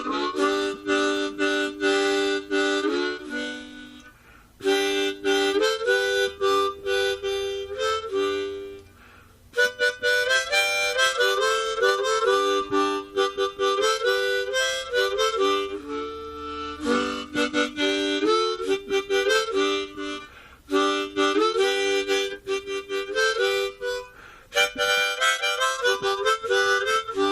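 Harmonica music: a tune played in steps of single notes and two-note chords, with a few short pauses between phrases.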